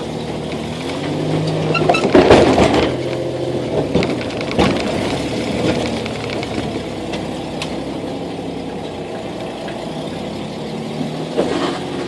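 Jeep Wrangler engine running and revving as it crawls over a rock obstacle, loudest about two to three seconds in, with a few sharp knocks mixed in.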